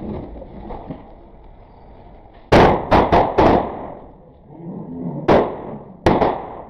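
A chain of small homemade triangle firecrackers going off one after another as a slow-burning hair fuse reaches each one. There are four sharp bangs in quick succession about two and a half seconds in, then one more, and two close together near the end.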